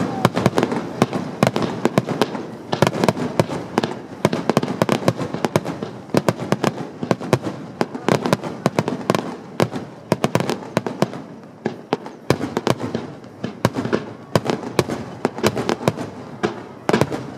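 Dense barrage of fireworks set off from a launch barge: rapid, overlapping sharp bangs, several a second, without a break.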